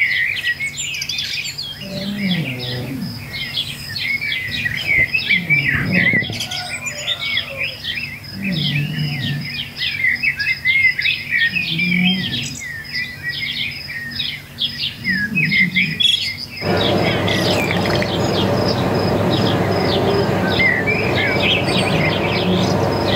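A dense chorus of small birds chirping and singing, with a lower call repeating about every three seconds. About two-thirds of the way through, a steady rushing noise comes in underneath.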